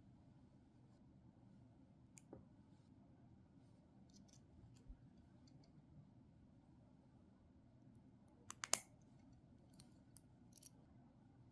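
Sparse light clicks and ticks over near silence, with a sharper cluster of three quick clicks about eight and a half seconds in: the hard plastic links and joints of a 3D-printed four-bar linkage model knocking as it is handled and moved.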